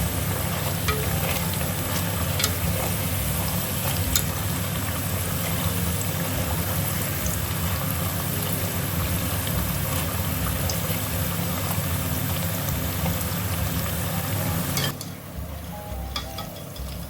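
Besan-battered potato slices (aloo pakoras) deep-frying in hot oil: a steady, loud sizzle with scattered sharp crackles that stops abruptly near the end.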